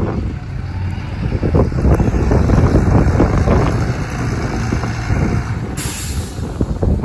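Bus diesel engine running with a heavy low rumble. A short air-brake hiss comes in near the end.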